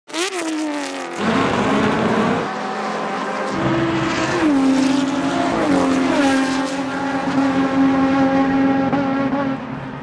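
Inline-six race car engines at high revs: a car passes with its engine note falling as it goes by, then an engine held at a steady high pitch that drops in steps, as if shifting or lifting, and holds again.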